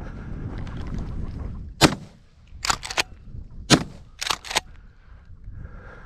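Two shotgun shots about two seconds apart, each followed by a pair of lighter sharp cracks, fired on a long shot at flushing upland birds that misses. Wind buffets the microphone before the first shot.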